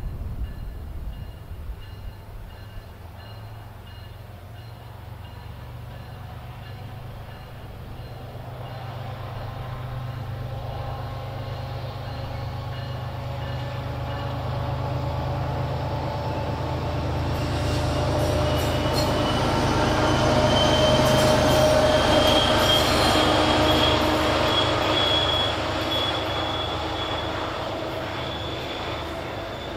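MBTA commuter rail train led by its diesel locomotive approaching and passing: a steady low engine drone that grows louder. About halfway through, a high wheel squeal and clicks from the wheels on the rails join it. The sound is loudest about two-thirds of the way in, then eases off as the coaches go by.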